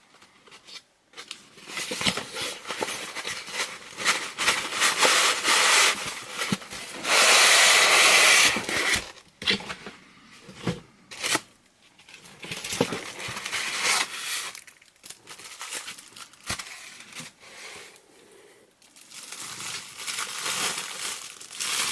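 A cardboard box being opened by hand, its packaging torn and packing paper crumpled in irregular rustling bursts, the longest and loudest about seven to eight and a half seconds in.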